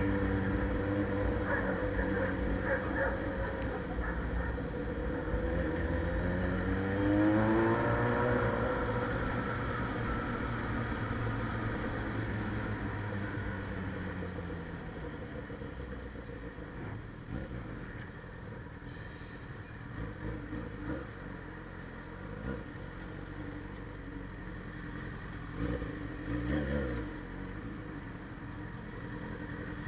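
Suzuki Bandit 600's carbureted inline-four through a straight-pipe sport exhaust, under way. It revs up with a rising pitch about seven seconds in, then settles lower and quieter, with another short rev near the end.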